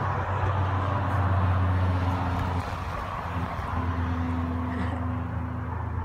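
A vehicle engine humming steadily, under a faint outdoor noise, a little quieter after a couple of seconds.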